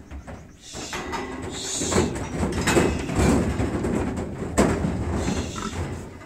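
Metal pig pen or crate gates rattling and knocking as pigs are caught and moved, in an irregular series of clanks and scrapes.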